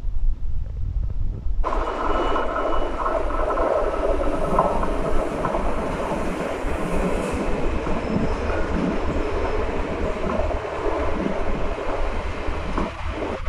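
Régio2N double-deck electric train running past on the rails: steady running noise that sets in suddenly about two seconds in, with a few faint thin squeals over it.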